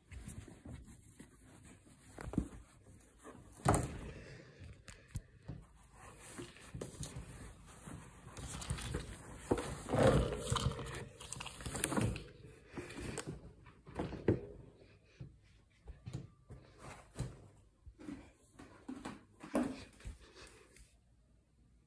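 Fleece bedding in a guinea pig cage rustling and being shifted about, with irregular soft thumps and knocks, the loudest of them around the middle.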